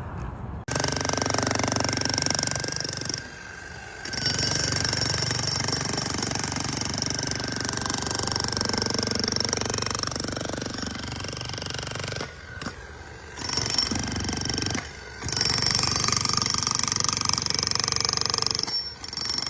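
Jackhammer running in long bursts with a few short pauses, starting about a second in.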